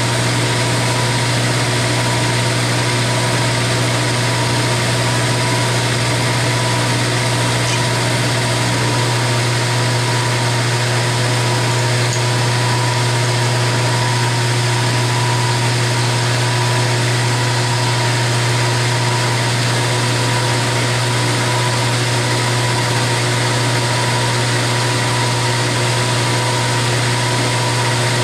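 Milling machine running with an end mill cutting into an aluminum block: a steady, unbroken hum.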